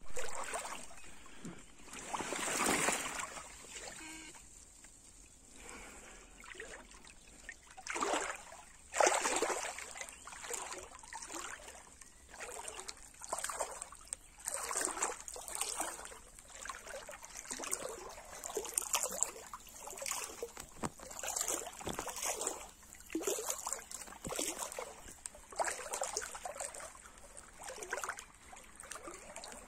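Shallow river water sloshing and splashing in irregular bursts, roughly one a second, with the loudest splash about nine seconds in, over a faint steady high hiss.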